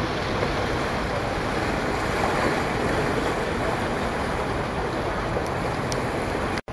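Steady rushing of the flooded Elbe's fast current, mixed with wind on the microphone. The sound cuts out for an instant near the end.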